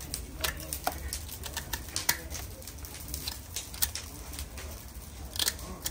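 Irregular light clicks and taps, a dozen or more scattered through, over a low steady hum.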